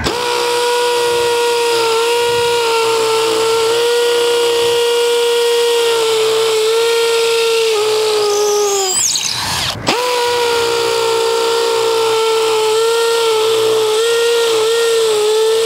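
Makita XPH07 18V brushless hammer drill drilling into hard concrete in hammer mode with a 3/8-inch masonry bit, a steady high buzz from the hammer action. It stops briefly about ten seconds in and starts on a second hole.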